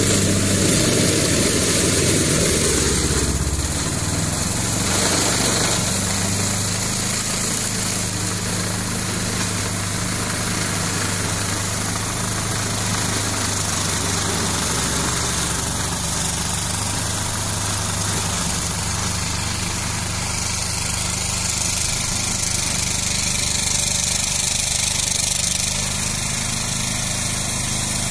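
The Lombardini diesel engine of a Ferrari 95RS compact tractor runs steadily while driving its brush-cutting mulcher. A higher whine drops away about three seconds in, and the engine keeps running evenly after it.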